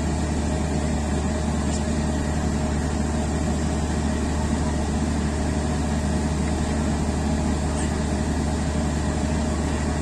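Steady mechanical hum of a diesel-hauled passenger train standing still while held at a signal, its idling equipment running with no change in pitch or level.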